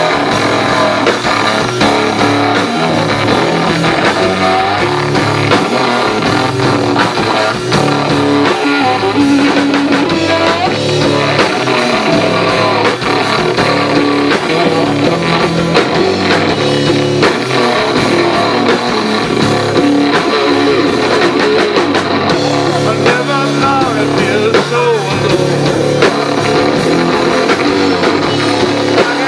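Live rock band playing an instrumental passage: electric guitar over bass and drum kit, with no vocals.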